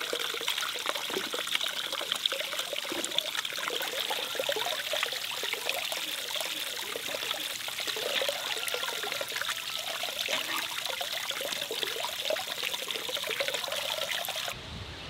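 Water pouring steadily off a stone ledge into a steel basin and splattering on the rock, with small splashes as a hand washes gooseberries in the water. The pouring cuts off just before the end.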